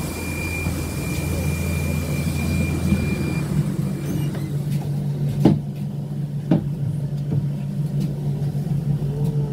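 Cabin noise inside a KAMAZ-6282 electric bus: a steady low hum, with a steady high tone that stops about three and a half seconds in, and a couple of sharp knocks past the middle.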